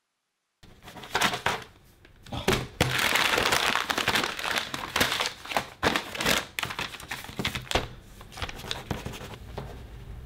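Sheets of paper being handled, rustling and crinkling with irregular crackles. It starts after a brief silence, is busiest in the middle and thins out near the end.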